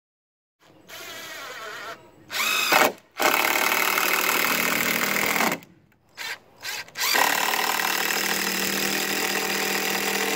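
Ridgid cordless drill driving screws into a new deck board. First comes a short, quieter spin, then a brief burst that speeds up. After that come two long runs of about two and a half and three and a half seconds, with two quick trigger blips between them.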